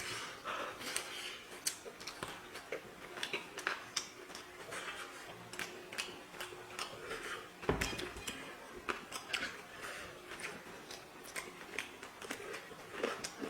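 Eating by hand: chewing and fingers working rice on a plate, heard as scattered small clicks and crackles, with one louder knock about eight seconds in.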